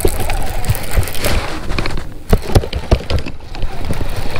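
Irregular knocks, clicks and thumps from a baitcasting rod and reel handled right at the microphone while a hooked fish is being fought, over a low rumble.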